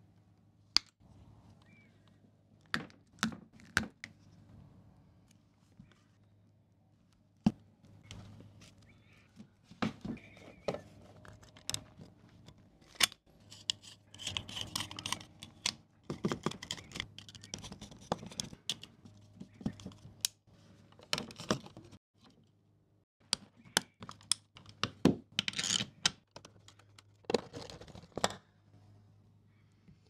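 Scattered sharp clicks, taps and scraping from hands wiring a wall light switch: cable conductors and earth sleeving being handled, a plastic switch plate knocking, and a screwdriver working on the terminal and faceplate screws. The busiest stretches come in the middle and again near the end.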